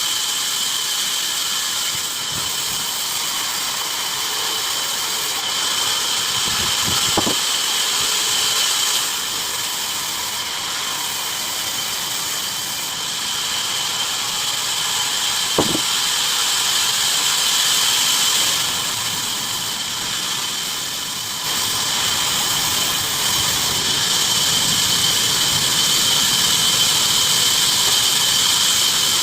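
Bandsaw running through wood with a steady high-pitched whine over a hiss. It eases off in level a couple of times and picks back up, with two short sharp knocks along the way.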